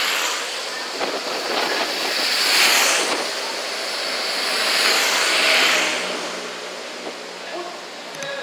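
Police escort motorcycles passing close by one after another, in two swells of engine and road noise about three seconds apart.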